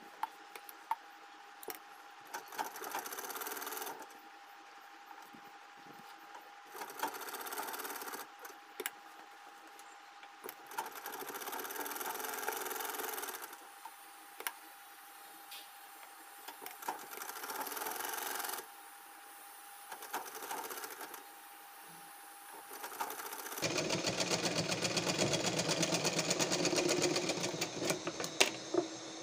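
Domestic sewing machine stitching fabric in five short runs, stopping and starting. The last run, beginning about two-thirds of the way in, is the longest and loudest, with a fast, even stitch rhythm. Light clicks and handling noise come between the runs as the cloth is repositioned.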